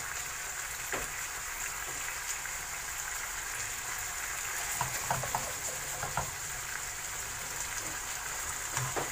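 Chicken pieces sizzling and simmering in sauce in a frying pan, a steady frying hiss, with a few light clicks of a utensil against the pan.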